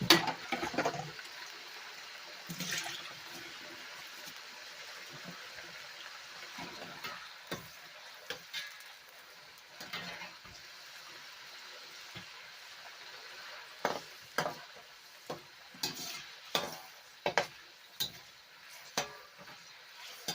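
Shrimp being stirred in a pan with a metal utensil: a knock at the start, then scattered clinks and scrapes that become a regular clinking, several a second apart, in the second half, over a steady hiss of cooking.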